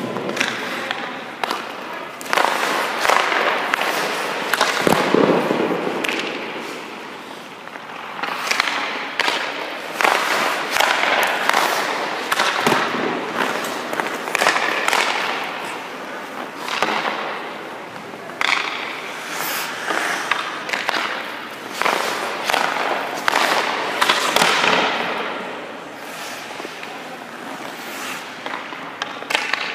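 Hockey goalie's skate blades scraping and hissing on the ice as he pushes across the crease and drops into butterfly slides, with sharp cracks of pucks being shot and striking his pads.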